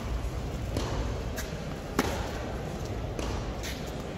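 Tennis ball struck with a racquet in a baseline rally on a hard court. One sharp crack about halfway through comes from the near player's groundstroke, with fainter pops of the ball bouncing and of the far player's returns before and after it.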